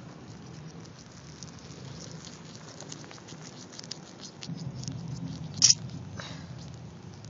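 Aluminum–sulfur–sand thermite still reacting after ignition, crackling with rapid small ticks as the molten silicon product bubbles. A single sharp snap stands out about five and a half seconds in, with a fainter one just after.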